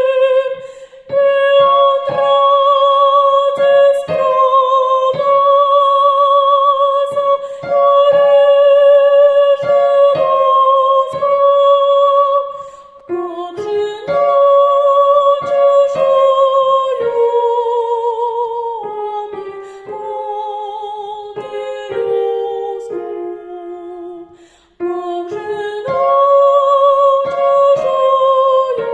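A high female voice singing a slow melody solo, holding long notes with vibrato and no accompaniment heard. The singing drops away briefly about 24 seconds in, then picks up again.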